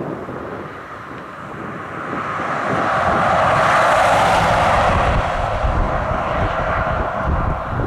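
A motor passing by: its sound swells to a peak about four seconds in, then fades away.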